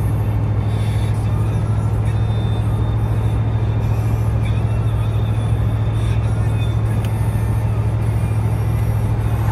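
Steady low drone of a car driving at road speed, heard from inside the cabin: engine and tyre noise with no change in pace.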